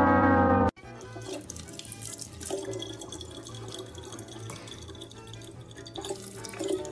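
A tap running a thin stream of water into a plastic bottle in a sink. It follows a loud burst of music that cuts off suddenly under a second in.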